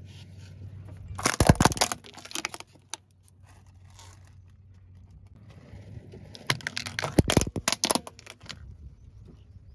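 Car tyre rolling over a hollow plastic toy, the plastic cracking and crunching in two bursts about five seconds apart, over a low steady hum.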